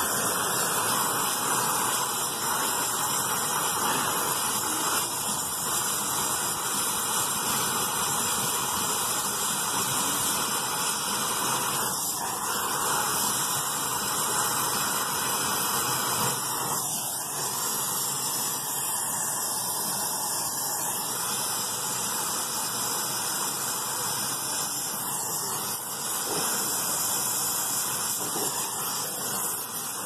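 Brazing torch flame hissing steadily while heating a joint in copper refrigerant tubing.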